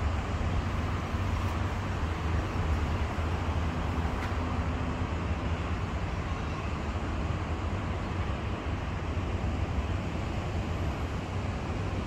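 Steady outdoor city background noise, a constant low rumble under an even hiss.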